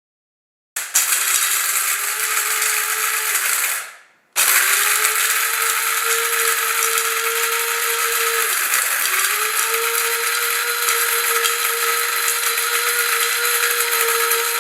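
Compact electric stainless-steel grain grinder running as it grinds grains: a steady motor whine over a grinding hiss. It spins up about a second in, winds down and stops near four seconds, then restarts almost at once and runs steadily. Its pitch sags briefly once midway before recovering.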